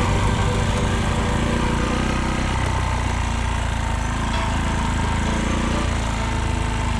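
Small vehicle engine running with a dense, rattling mechanical clatter: the unexplained abnormal rattle the owner could not trace.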